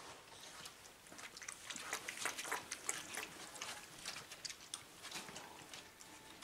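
A dog licking at a bowl of soup: a quick, irregular run of small wet clicks and smacks, thickest from about one and a half to three and a half seconds in.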